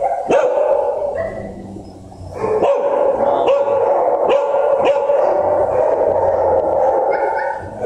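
Many dogs barking in shelter kennels: a constant, overlapping chorus of barks and yips that eases briefly about two seconds in, then picks up again.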